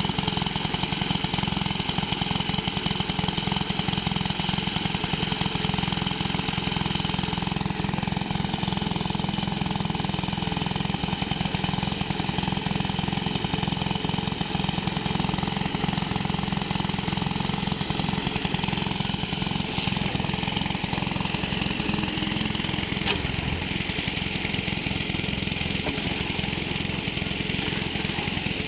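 An engine running steadily at a constant speed, with a rapid, even pulsing beat.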